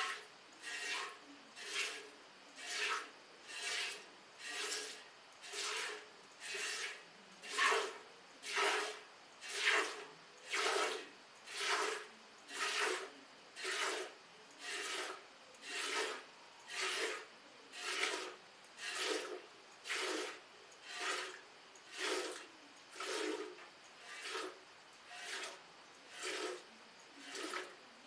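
Milk squirting by hand from a cow's teats into a steel pail: a short hissing spurt with each squeeze, in a steady rhythm of about one a second.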